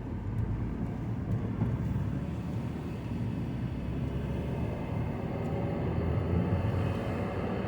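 2009 Mazda 5's four-cylinder engine and road noise heard from inside the cabin as the car accelerates, the engine note rising through the second half.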